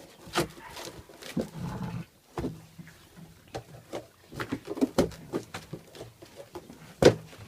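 Puppies growling and scuffling as they play with cardboard boxes and toys, with many short knocks and rustles.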